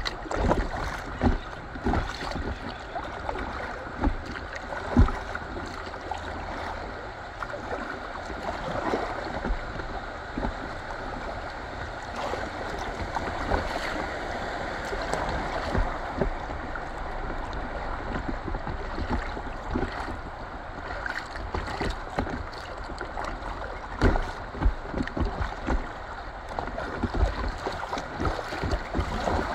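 Fast-flowing river water rushing and lapping around an inflatable kayak drifting through riffles. Irregular low thumps come through it, most in the first few seconds and again near the end.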